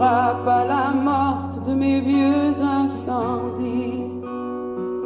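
A song playing back through Aiwa Orb Bluetooth speakers: a voice singing with vibrato over acoustic guitar, the voice dropping out after about three and a half seconds while the guitar carries on.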